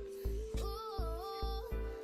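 Background music with a steady, deep beat under a held melody.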